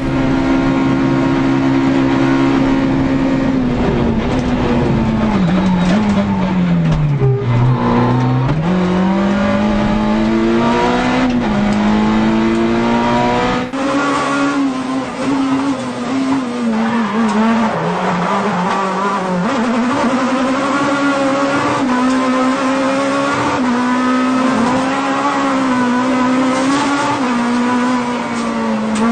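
Sports car engine running hard, its pitch sinking to a low point about seven seconds in and climbing back as the revs fall and rise. About halfway through it changes abruptly, then keeps revving up and down in short waves.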